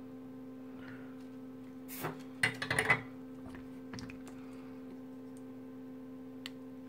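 Clicks and clatter of small hand tools being handled while a thin silicone wire is trimmed with cutters, loudest in a short cluster about two to three seconds in, then a few faint single ticks. A steady low hum runs underneath.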